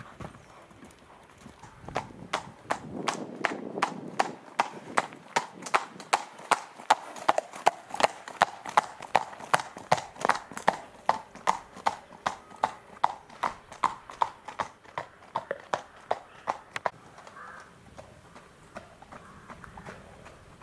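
Horse's hooves clip-clopping on a hard lane in a steady beat of about three a second. The beat starts about two seconds in and fades out near the end.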